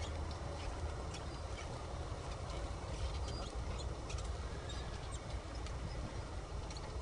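Outdoor ambience: a steady low rumble with many faint, irregular high clicks and chirps scattered throughout.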